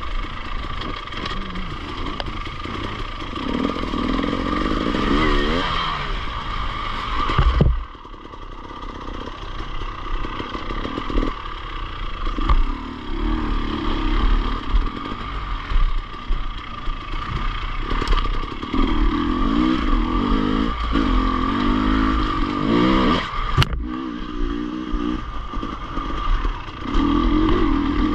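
Enduro motorcycle engine running under a rider's throttle, its pitch rising and falling again and again, with clattering. It dips suddenly about eight seconds in, and there is a sharp click near the end.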